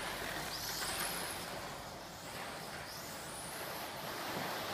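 Electric motor of a 1/12-scale RC racing car whining, its pitch rising and falling as the car accelerates and slows through the corners, over a steady hiss.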